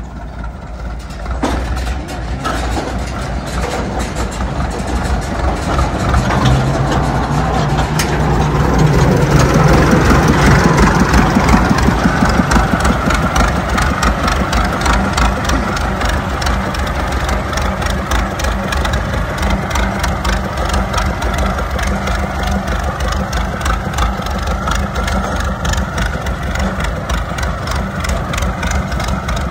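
Massey Ferguson 185 tractor's four-cylinder Perkins diesel engine running as it pulls away with its trailer. It grows louder over the first ten seconds or so, then holds steady.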